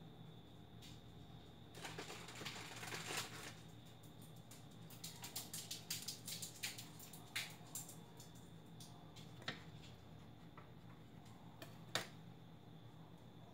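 Thick creamy mixture being poured out of a plastic blender jar into a plastic tub, with handling noise from the jar: a rustle about two seconds in, then a run of light clicks and taps, and a sharper knock near the end.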